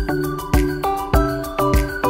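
Background music with a steady beat: a low thump a little under twice a second under a pitched, tuneful melody.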